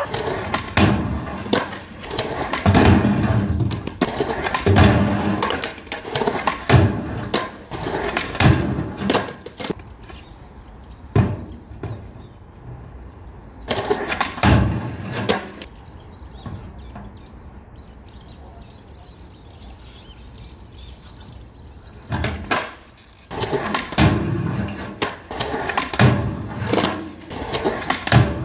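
Skateboard wheels rolling on concrete, with repeated clacks and slaps of the board hitting the ground and a funbox ledge. There is a quieter stretch in the middle, then more rolling and impacts near the end.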